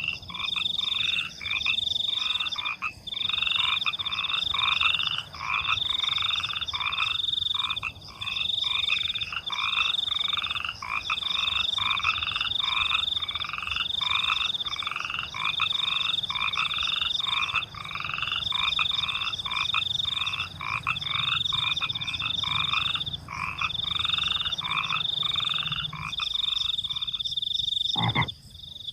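Frogs calling in a steady chorus of repeated croaks, about two a second, with crickets trilling high above them in long runs that break off every second or two.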